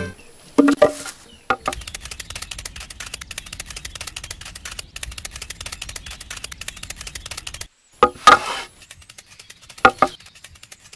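Short wooden knocks and clatters of small sticks being set down, the loudest cluster about eight seconds in and another near the end, with a faint rapid crackling in between.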